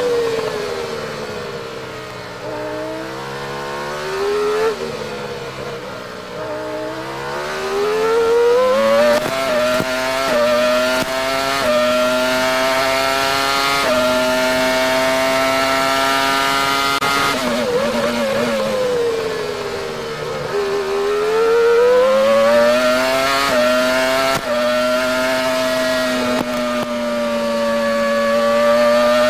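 Onboard sound of the 2001 Minardi PS01's 3.0-litre V10 Formula One engine at racing speed. The pitch drops in steps as it downshifts under braking for a corner, then climbs through several quick upshifts and holds a high, steady note. About two-thirds of the way through it drops again through the downshifts for another corner, then climbs and holds once more.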